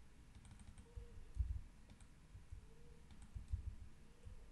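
Computer mouse clicking faintly a few times at irregular intervals, with a couple of soft low thumps.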